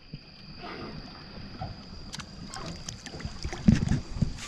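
Water lapping and sloshing against the dock, with a few low thumps about three and a half seconds in.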